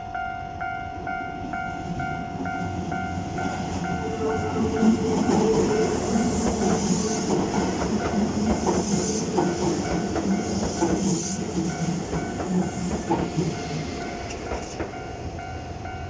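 Keisei 3500-series commuter train passing a level crossing: the train's rumble and wheel clatter over the rail joints swell about four seconds in and fade near the end. Throughout, the crossing's warning bell rings in a fast, steady repeating ding, heard plainly before and after the train.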